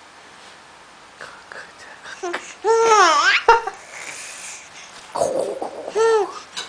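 A baby babbling and laughing, with two high squeals that rise and then fall in pitch, one about two and a half seconds in and one near the end.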